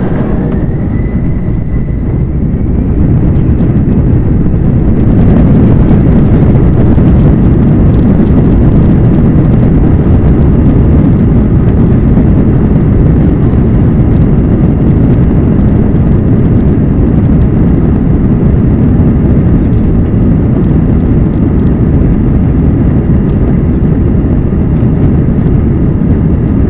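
Airbus A321's twin jet engines heard from inside the cabin, spooling up over the first few seconds with a faint rising whine, then a loud steady roar with deep rumble: engines at takeoff thrust during the takeoff roll.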